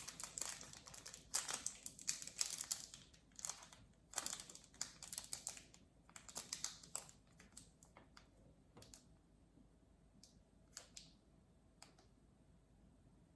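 Small plastic toy capsule and wrapper being handled: a run of crinkles and light clicks for about seven seconds, thinning to a few scattered clicks near the end.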